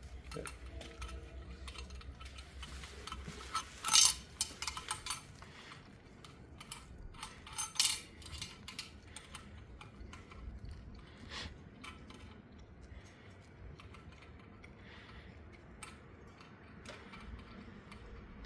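Small metal parts clinking and clicking as a conduit lock nut and fittings are handled and threaded on at an electrical panel, with a sharper metallic clank about four seconds in and another near eight seconds.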